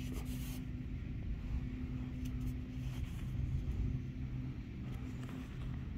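A steady low mechanical hum with constant low tones, with brief scuffing and rustling of gloved hands handling close to the microphone in the first half second and again around two seconds in.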